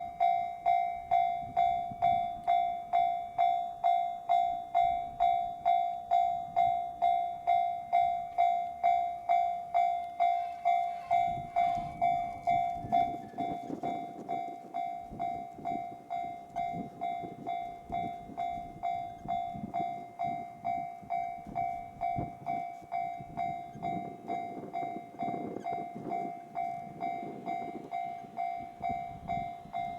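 Level-crossing warning bell ringing about twice a second, stepping quieter about 13 seconds in. From about 11 seconds in, a freight train hauled by a JR Freight EF200 electric locomotive passes over the crossing, its wheels rumbling in a rhythmic beat under the bell.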